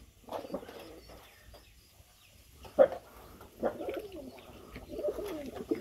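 Domestic pigeons cooing in the pen, a run of wavering coos in the second half, with one sudden sharp knock a little before the middle.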